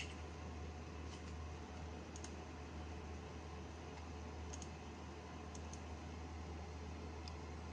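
Scattered faint clicks from a computer's mouse and keyboard, a few of them in quick pairs like a button pressed and released, over the steady low hum of the running PC.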